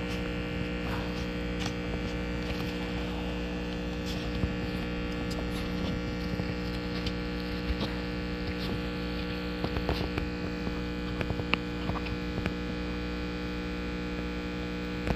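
Steady electrical hum from a powered-up QROTECH QRO-401 exhaust gas analyzer, with a few faint clicks as its handle filter and rubber fitting are handled.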